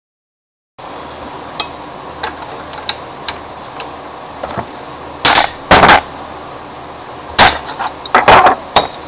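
Metal knocking and clanking as a castor's stem is worked out of its socket in an office chair's base leg: a few light clicks, then loud clanks in two clusters, about halfway through and near the end.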